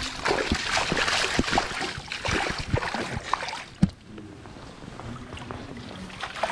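Water splashing and sloshing close to the microphone around a landing net in the water, with many small knocks and a sharp thump about four seconds in, then calmer lapping.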